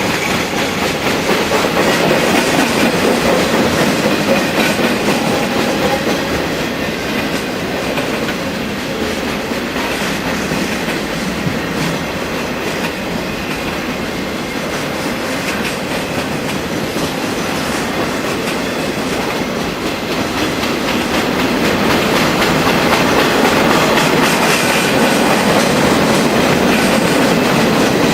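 Union Pacific freight train passing close by, its cars rolling steadily with wheels clacking over the rail joints. The sound swells a little after about twenty seconds.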